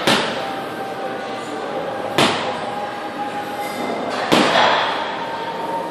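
Three sharp knocks about two seconds apart, in time with a set of dumbbell stiff-legged deadlifts, over steady room noise.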